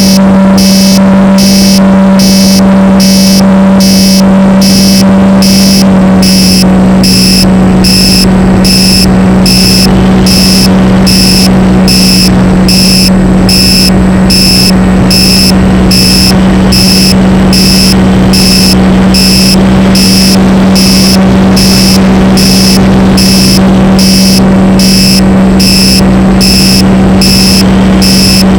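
RC plane's motor and propeller running at a steady pitch, very loud and close on the onboard camera. A regular pulsing buzz repeats about one and a half times a second over it.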